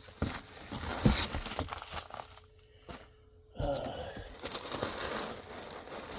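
Packaging being handled and crinkled while a box is unpacked, with a sharp knock about a second in and a short lull in the middle before the rustling resumes.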